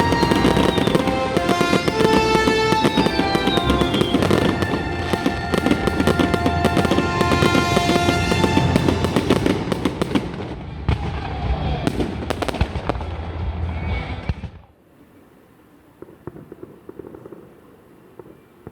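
Fireworks bursting in rapid succession with music playing along; about fifteen seconds in the sound cuts off abruptly to a much quieter background with a few faint distant pops.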